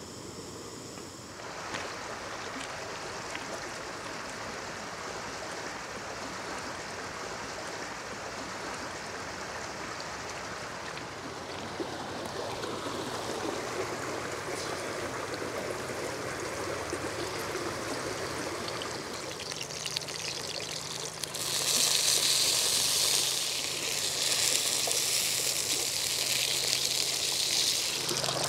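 Shallow stream running over stones. Near the end, a slab of pork belly is laid on a hot griddle and sizzles, a loud hiss that rises over the water.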